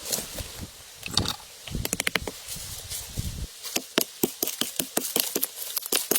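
A quick series of sharp clicks and knocks: a tight cluster about two seconds in, then a faster run of about four or five a second in the second half.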